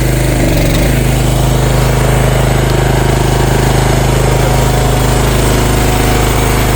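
CFG MX15RX mini excavator's engine running steadily, its pitch shifting slightly just under a second in and then holding.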